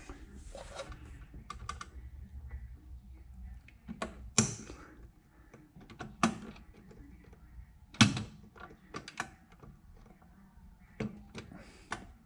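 Irregular sharp clicks and knocks, about half a dozen, as small parts of a wiring-loom connector and hand tools are handled and pushed into place.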